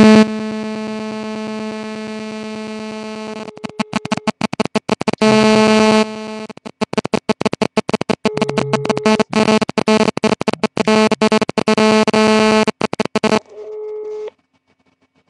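Mobile phone on speakerphone playing loud, distorted electronic call tones: a steady tone for the first few seconds, then the same tones broken into rapid stutters, a fainter tone near the end, and a sudden cut-off about 14 seconds in.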